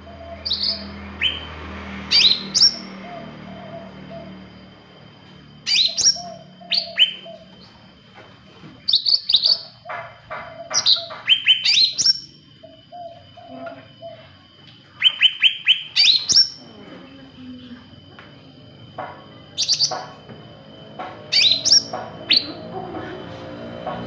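Caged cucak ranting, a green leafbird, singing in short bouts of sharp, high notes that slide steeply, some in quick runs of four or five, coming every few seconds with pauses between.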